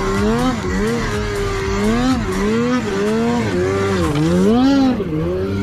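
Snowmobile engine running hard, its pitch rising and falling about once a second as the throttle is worked on and off.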